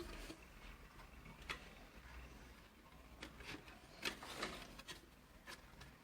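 Faint, scattered small clicks and light rubbing from the juicer motor's wires and parts being handled.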